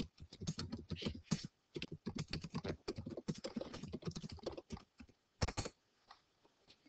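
Computer keyboard typing: a quick, uneven run of keystrokes for about five seconds, then a louder pair of key presses, after which the typing stops.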